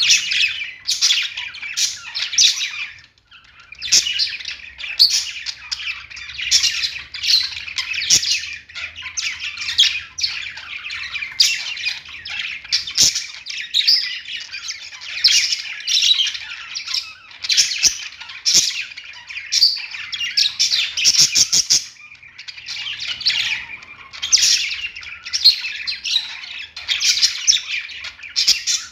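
Budgerigars chattering and chirping in a near-continuous stream of quick high calls and squawks, with brief pauses about three seconds in and again near twenty-two seconds.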